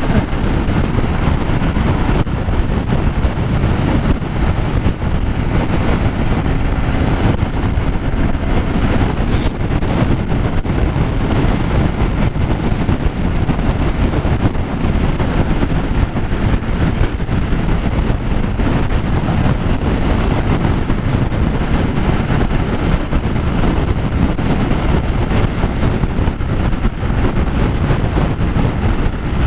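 Steady wind rush over the microphone with motorcycle engine and road noise, riding a Yamaha XTZ Crosser at road speed in strong crosswind.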